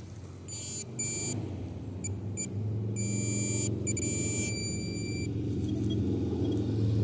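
Metal detector sounding high-pitched target tones: several short beeps and a few longer ones in the first five seconds. Under them a low rumble grows louder.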